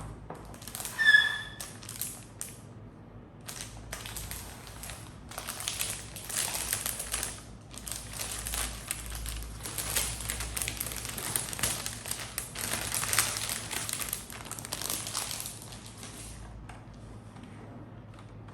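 Plastic wrapping crinkling and rustling as a computer keyboard is unwrapped and handled, uneven and crackly for much of the time and dying down near the end. There is a short squeak about a second in.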